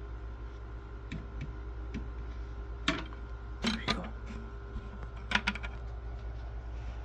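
A bowl clicking and knocking against the rim of a glass terrarium as a spider is tipped out of it, a few light taps and then louder clusters about three and five and a half seconds in, over a steady low hum.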